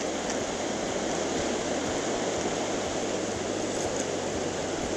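Fast-flowing mountain river rushing steadily over rocks.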